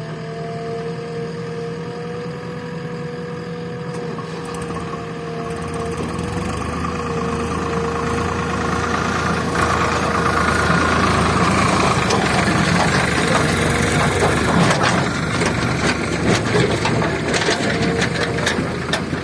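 Diesel engine of a JCB backhoe loader running with a steady whine, building up to higher revs under load. Irregular knocks and clatter come in over the last few seconds.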